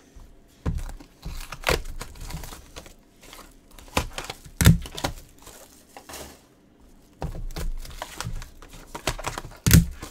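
Crinkling and rustling of plastic and paper as trading cards and their packaging are handled, with scattered light clicks and two sharper knocks, one about halfway and one near the end.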